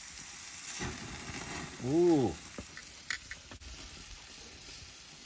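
Whole spatchcocked chicken sizzling steadily on the grates of a gas grill over direct flame. A few sharp metal clicks from tongs a little after the middle.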